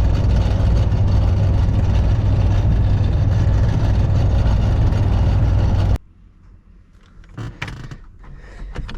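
A 1992 Chevy C1500's 350 small-block V8 running steadily with its drone of engine and road noise, the sound the owner offers as the truck's annoying vibration. It cuts off abruptly about six seconds in, and a few light clicks and knocks follow.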